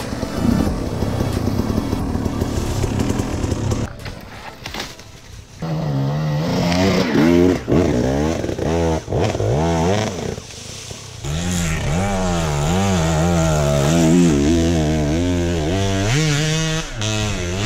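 Dirt bike engine being ridden: rough and noisy at first, then from about five seconds in a clear engine note that rises and falls again and again as the throttle is opened and closed.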